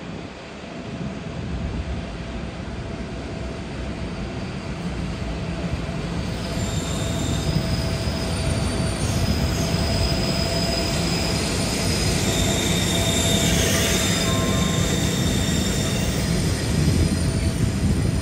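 A train rolling into or through the station, its low rumble growing louder. High-pitched wheel squeal sets in about six seconds in and lasts about ten seconds.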